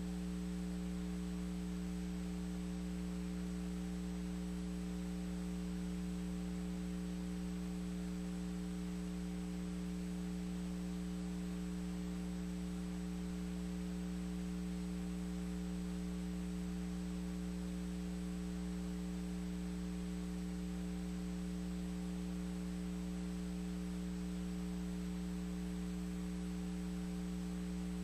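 Steady electrical mains hum, unchanging throughout, with a faint thin high-pitched whine above it; no race sound or commentary is heard.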